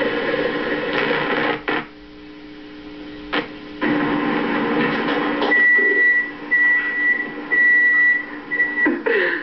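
Steady hum and hiss broken by a few sharp clicks, then from about halfway in a high electronic beep sounds four times, about once a second.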